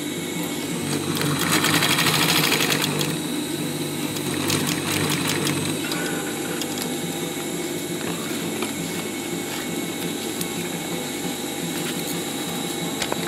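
Sewing machine stitching through layered canvas in short runs, its needle ticking rapidly over a steady motor hum; the loudest run of stitching comes about one to three seconds in, with a shorter one a little later.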